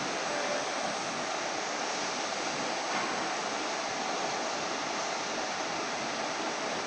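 Steady, even rushing noise with no distinct tone from a steel pipe turning on the motor-driven polyurethane rollers of a welding turning roll.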